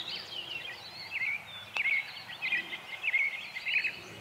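Songbirds chirping, a quick run of short high calls, with one sharp click nearly two seconds in.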